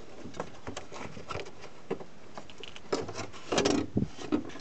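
Hands fitting a stamped steel access cover and its rubber wiring grommet onto the car's floor panel: scattered light clicks, taps and rustles of metal, with a louder cluster of knocks about three and a half seconds in.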